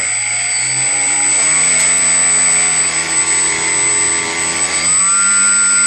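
RC plane's 1650 KV brushless electric motor spinning its propeller under throttle. It is a steady whine that steps up in pitch about a second and a half in and again near the end, with a thin high whine above it.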